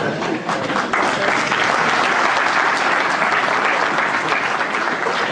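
Live audience applauding, a dense patter of many hands clapping that thickens about a second in.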